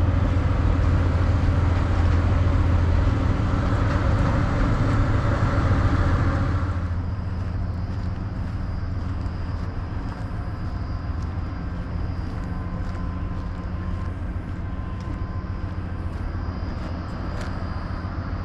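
Diesel passenger train standing at the platform with its engine idling: a steady low rumble that drops in level about six or seven seconds in.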